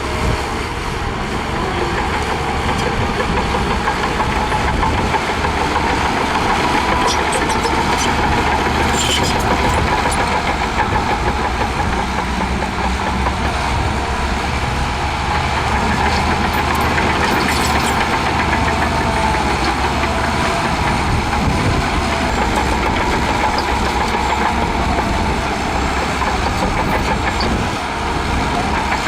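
Heavy diesel engine of earthmoving machinery running steadily, with a steady high whine above the low engine rumble.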